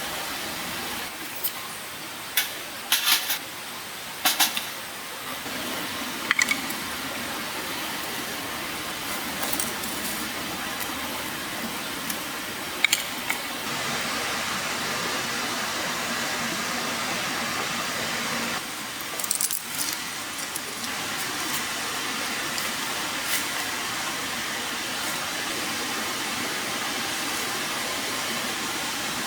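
Steady background hiss with sharp clinks and taps of small hard objects: a quick cluster in the first few seconds, single ones around 6 and 13 seconds, and another cluster about two-thirds of the way through.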